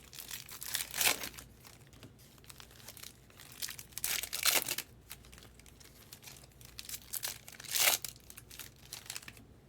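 Plastic and foil packaging of trading-card boxes and packs being crinkled and torn open by hand, in three main crackly bursts, about a second in, around four seconds and near eight seconds, with lighter rustling between.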